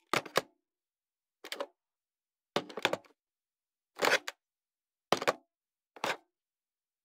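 A series of about six separate telephone handset pick-up and hang-up clacks, the handset knocking against the phone's cradle, each short and several with a double click, spaced about a second apart with silence between.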